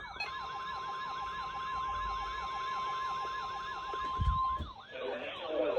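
Electronic emergency alert tones announcing a severe thunderstorm warning: a fast siren-like yelp, about five sweeps a second, with a steady high tone underneath. Both cut off about four and a half seconds in, with a short thump just before, and a broadcast voice begins near the end.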